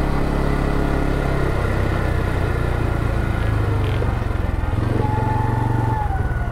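CFMoto CForce 450 ATV's single-cylinder engine running under way, its note shifting up and down with the throttle. A brief high tone slides down near the end.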